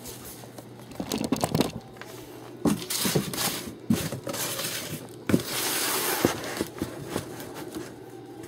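A plastic shopping bag rustling and crinkling as it is handled, in several bursts, the longest a little after the middle, with a few sharp knocks and bumps in between.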